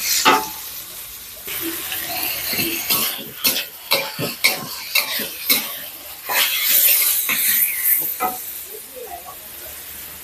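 Marinated pork sizzling in a wok as it is stir-fried, with a metal spatula and ladle scraping and clanking against the wok again and again. The clanking thins out near the end while the sizzle goes on.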